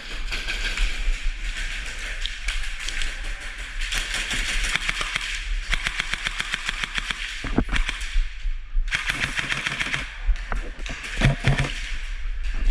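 Airsoft guns firing rapid bursts of shots, with short gaps between bursts.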